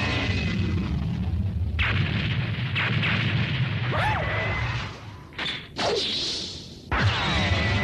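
Animated battle sound effects: a steady low rumble with several sudden hits and whooshes, a couple of them sweeping down in pitch.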